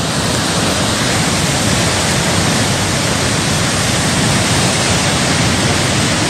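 Steady, loud rushing noise of floodwater pouring down in a torrent, even and unbroken with no distinct impacts.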